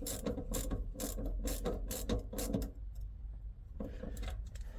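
Socket ratchet clicking in quick rapid strokes as a small bolt is worked, stopping a little over halfway through, then a brief burst of clicks near the end.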